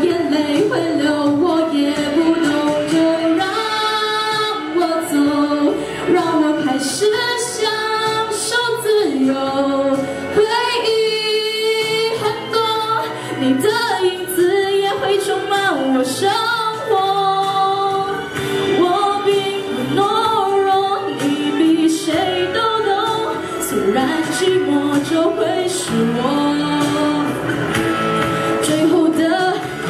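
A teenage girl singing a slow Mandarin pop song into a handheld microphone, amplified over instrumental accompaniment, her voice carrying a continuous, gliding melody.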